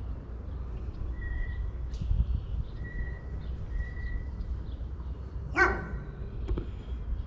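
A dog barks once, loud and short, about five and a half seconds in, over a steady low rumble. A few faint, thin whistled notes come earlier.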